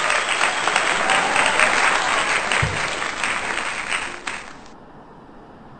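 Crowd applause: dense clapping that cuts off suddenly about four and a half seconds in, leaving only faint room noise.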